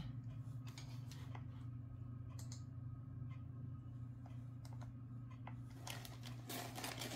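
A few faint, light clicks and taps at uneven intervals over a steady low electrical hum, with a small cluster of clicks near the end.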